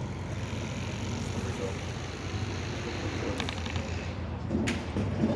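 Steady low rumble of a motor vehicle engine running, with a short sharp sound near the end.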